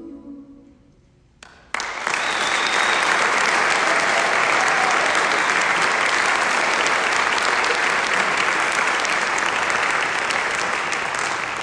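The a cappella group's final held chord fades away. About a second and a half in, the audience starts applauding loudly and keeps it up, easing off slightly near the end.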